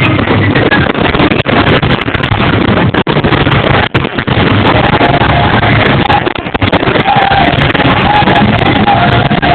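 Loud show music from a fireworks display's soundtrack, harsh and distorted as if the recording is overloaded.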